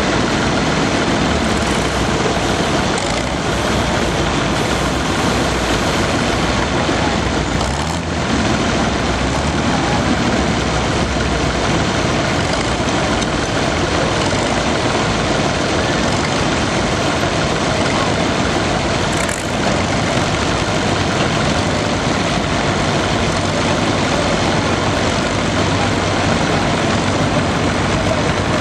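Ford farm tractor's engine running hard and steady under load as it pulls a weight-transfer sled.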